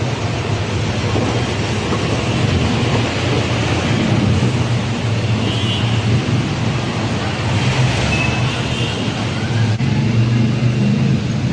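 Steady motor-vehicle noise: a continuous low engine rumble under a hiss of road noise, with no pauses.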